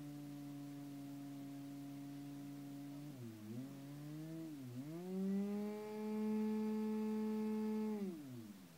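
Small combustion engine of a Modeltech Magic model aeroplane running while held on the ground. It holds a steady pitch, the revs dip twice around three to five seconds in, then it is opened up to a higher, louder steady pitch and throttled back down near the end.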